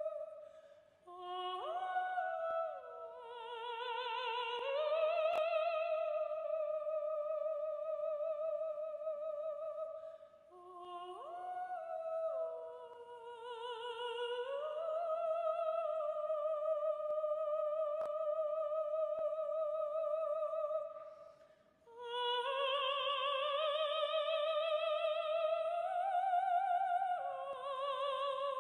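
A single high voice singing slow, wordless, opera-like long notes with wide vibrato, in three phrases that each begin with a rising step and hold at length.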